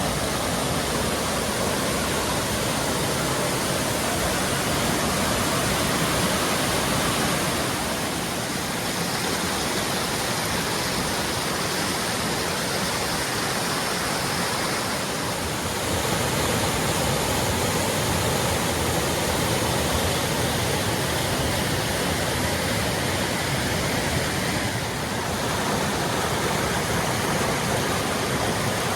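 Waterfall running high after heavy rain, pouring with a steady, even rush that dips slightly in level a few times.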